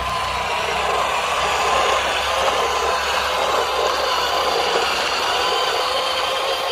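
Radio-controlled Huina dump truck driving over sand: its electric drive motor and gearbox give a steady whine over the crunch of the tyres.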